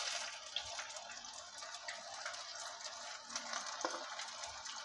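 Pumpkin-leaf pakoras deep-frying in hot oil in a wok: a steady sizzle with a few small crackles.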